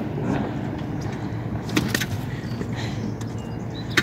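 A few sharp clicks and knocks as a 6 hp outboard motor's controls are worked, over a steady low rumble and hiss. Right at the end comes a strong click as the outboard catches and starts running.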